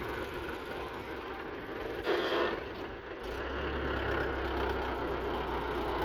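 Diesel engines of heavy earthmoving machinery running steadily, with a brief louder burst about two seconds in and a steady low drone joining a second later.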